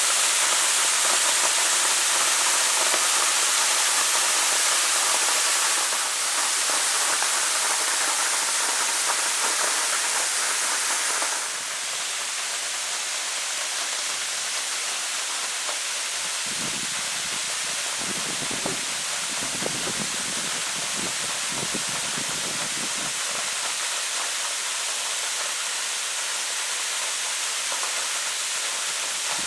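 Waterfall rushing, a steady hiss of falling water that drops in loudness twice, about six and about eleven seconds in, with some low rumbles in the middle.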